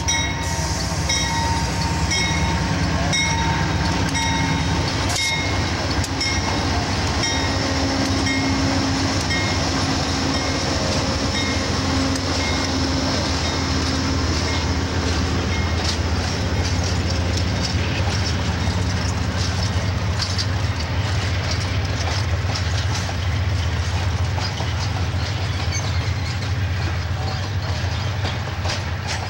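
A passenger train passing close by. The lead diesel locomotive's engine drones for the first few seconds, then the string of passenger cars rolls past with a steady clatter of wheels on the rails.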